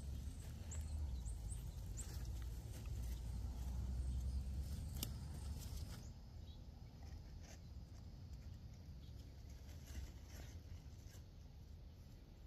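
Quiet outdoor garden ambience: a low rumble on the microphone through the first half that drops away about halfway through, with scattered light clicks and a few faint high chirps near the start.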